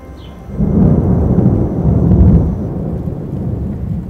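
Thunder rolling: a loud, deep rumble that swells about half a second in, peaks around two seconds, then slowly dies away.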